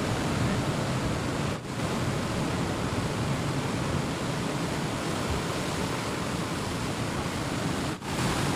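Steady rush of sea surf breaking on a rocky shore, an even roar with no distinct single waves standing out; it dips for an instant twice.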